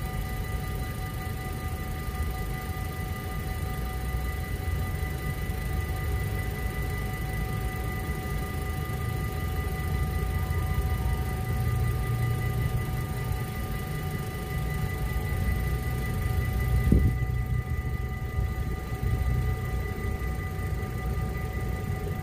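Dutch automatic half-barrier level-crossing warning bells ringing steadily with a constant ringing tone, signalling that the barriers are down for an approaching train. Under them runs a low rumble that grows a little in the second half, with one short thump about three quarters of the way through.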